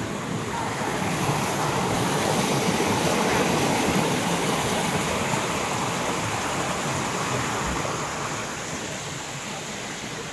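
Rushing water of a rocky stream cascading between boulders, a steady noise that is loudest in the first few seconds and eases off near the end.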